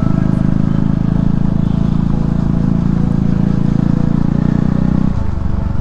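Hero Xpulse 200's single-cylinder motorcycle engine running steadily, easing slightly about five seconds in.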